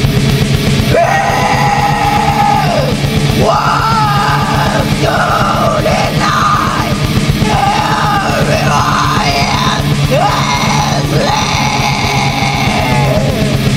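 Black metal song with fast, dense drumming and distorted guitars. Harsh vocals come in about a second in, in long drawn-out held lines.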